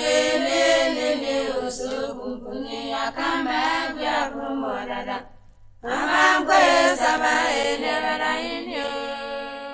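Background music of sung vocals in a slow, drawn-out chant-like melody, breaking off briefly about five seconds in before the singing resumes.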